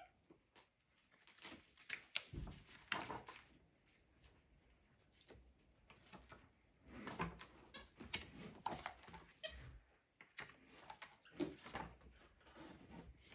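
A capuchin monkey handling and turning the pages of a large hardcover picture book: paper rustling and soft knocks of the book and pages, in irregular bursts several seconds apart.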